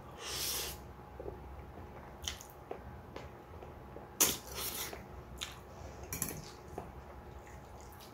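Close-miked eating sounds from instant noodles and chicken steak: wet chewing and mouth noises, with a few sharp clicks of cutlery against the bowl, the loudest about four seconds in.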